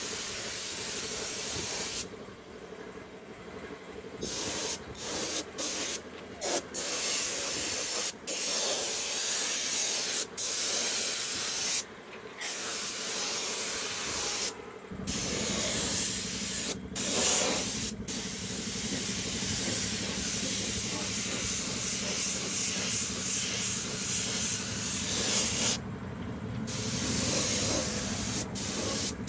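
Gravity-feed air spray gun spraying paint onto a tractor: a steady compressed-air hiss, broken by many short pauses as the trigger is let go, with a longer pause about two seconds in. A steady low hum joins about halfway through.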